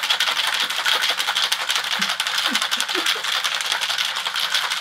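Ice rattling hard and fast inside a metal cocktail shaker wrapped in a towel, shaken vigorously and without a break to chill a vodka mule mix.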